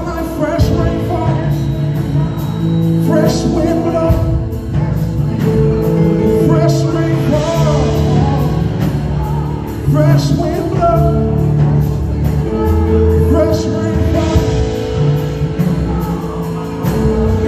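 Live gospel worship music: a male lead singer and a group of backing vocalists singing over band accompaniment with held chords and a bass line.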